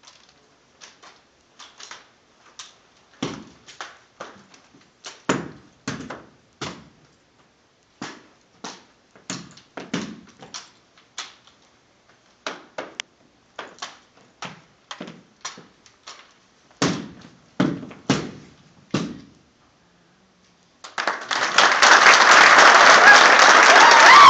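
Sailors' ceremonial rifle drill: sharp slaps and knocks of hands on rifles, rifle butts and heels striking a wooden floor, in irregular clusters with short gaps. About 21 seconds in, audience applause starts and fills the rest.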